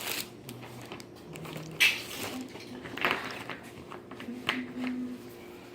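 Light rustling and a few soft knocks and clicks as items are rummaged through in a shopping bag, over a faint steady hum.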